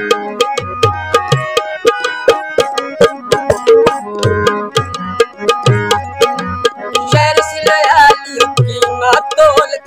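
Tabla and harmonium playing an instrumental passage of Punjabi mahiye folk music. Deep bass-drum strokes repeat under quick sharp treble strokes, over the harmonium's held reed chords.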